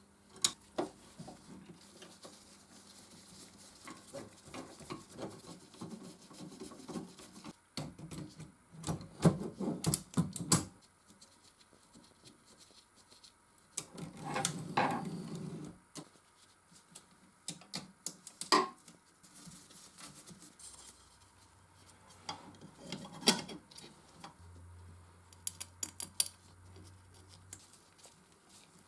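Metal parts of a Consul 221 typewriter and hand tools clinking, tapping and clicking as they are handled, in scattered clusters, with a longer rubbing sound about halfway through.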